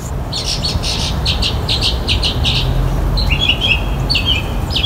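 Small birds chirping: a quick run of short, high chirps in the first half, then a few brief falling notes later, over a low rumble.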